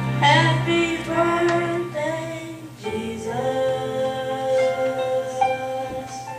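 Live gospel Christmas song: singers holding long, wavering notes over sustained keyboard accompaniment from a small church band.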